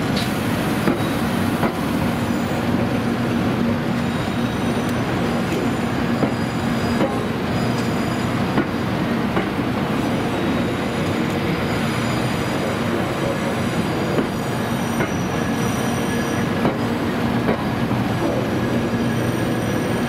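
Type 923 Doctor Yellow Shinkansen inspection train rolling slowly over a level crossing, a steady rumble with its wheels squealing on and off in thin high tones.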